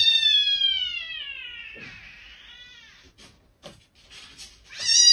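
Domestic cat meowing: one long, drawn-out meow that slowly falls in pitch and fades away, then a second loud meow near the end that cuts off abruptly.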